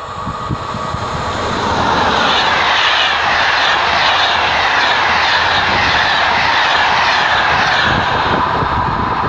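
SNCF electric locomotive BB 22343 hauling an Intercités train of Corail coaches passes at speed: a rush of wheels on rail that builds over the first two seconds and stays loud while the coaches go by.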